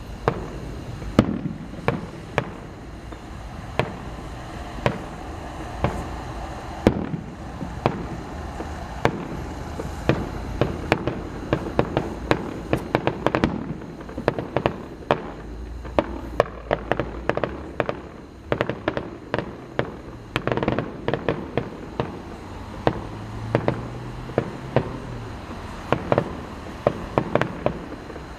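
Fireworks display: a steady run of shell bursts going off one after another, with stretches of rapid crackling where several go off close together, most densely in the last third.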